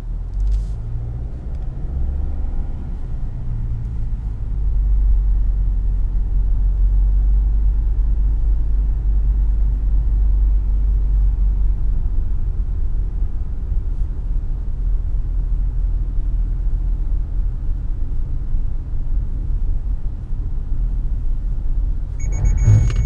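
Cabin sound of a car driving on a test track at about 32 km/h: a steady low rumble of engine and tyres, louder from about five seconds in. Near the end a high electronic warning tone starts, the car's collision warning for a pedestrian ahead, along with a low thump.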